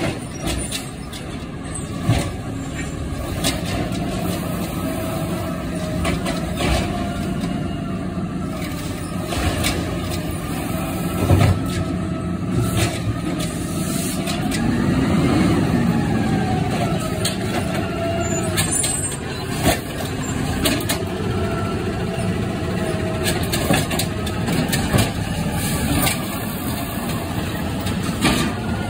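Diesel automated side-loader garbage truck running as it creeps up an alley, with several sharp hisses of its air brakes and knocks. Near the end its hydraulic arm is lifting a cart to the hopper.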